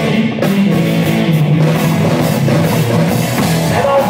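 Live rock band playing loudly: electric guitar lines over a drum kit.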